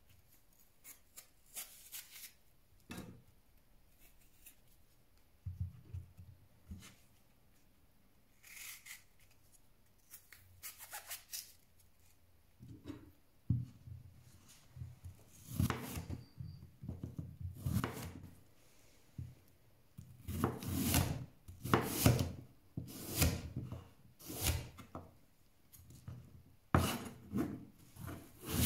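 Kitchen knife cutting crisp apple: a few scattered slicing strokes at first, then from about halfway a steady run of chopping strokes, each ending in a knock of the blade on a bamboo cutting board.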